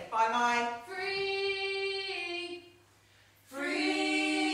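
A high voice singing long held notes without accompaniment, with a short break about three seconds in before the next held note.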